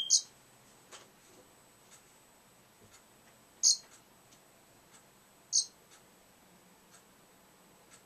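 A parrotlet gives three short, high chirps: one at the start, one a little past the middle and one about two seconds later. A faint tick sounds about once a second underneath.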